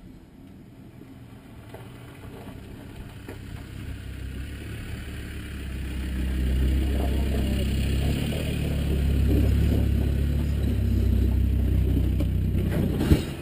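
A road vehicle running, with a low steady rumble. It grows louder over about six seconds, holds, and breaks off sharply with a short knock near the end.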